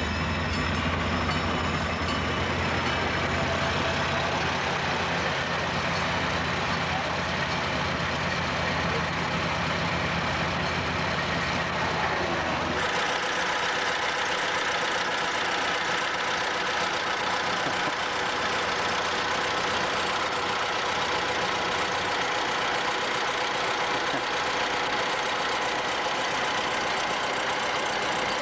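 A low steady engine rumble, then, after a cut about 13 seconds in, an antique touring car's engine idling steadily.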